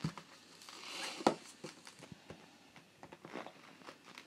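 Cardboard box sleeve sliding off a plastic packaging tray with a short rustle, a sharp click about a second in, then light taps and clicks as hands handle the box.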